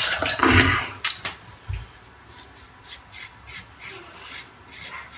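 A 3D-printed Triceratops single-edge safety razor scrapes through lathered beard stubble in quick short strokes, about four or five a second. It starts just after running tap water stops and a click about a second in.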